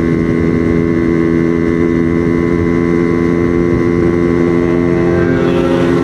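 Yamaha RX-King's two-stroke single-cylinder engine running steadily at cruising speed, heard from the rider's seat, with wind rumble on the microphone.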